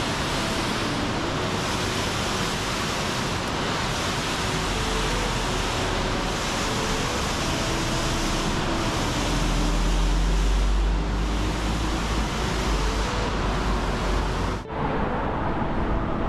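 Waterfall plunging down beside the open side of a roadside avalanche gallery, a steady rush of falling water heard up close, with a deep rumble underneath. Near the end it cuts off suddenly, giving way to thinner wind and road noise.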